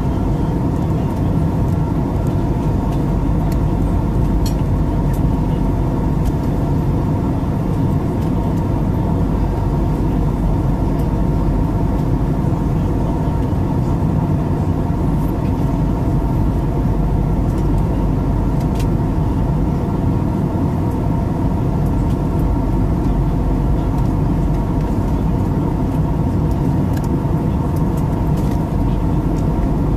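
Jet airliner cabin noise in cruise, heard from inside the cabin: a loud, steady drone of the turbofan engines and the air rushing past, with several steady hum tones running through it.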